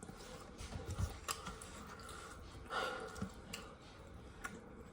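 Faint chewing and scattered small clicks of a person eating a piece of chicken.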